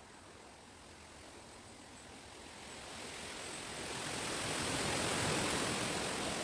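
A gust of wind rushing through the leaves of chestnut trees, building over a few seconds and easing a little near the end.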